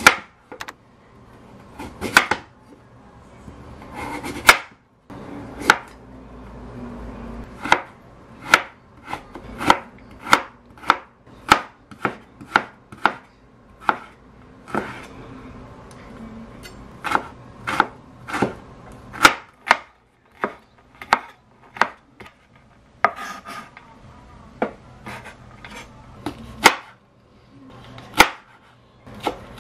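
Chef's knife cutting a carrot and then green chili peppers on a bamboo cutting board: separate sharp knocks of the blade striking the board, about one to two a second, in runs with short pauses.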